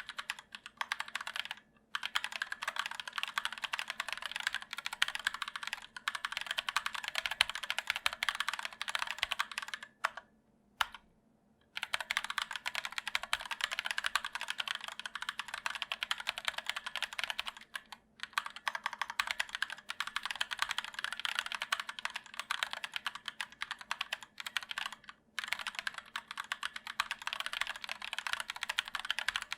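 Fast, continuous typing on an ErgoDox EZ split mechanical keyboard with Durock POM linear switches and sculpted PBT keycaps: dense clacking keystrokes, broken by brief pauses about 2, 10, 18 and 25 seconds in.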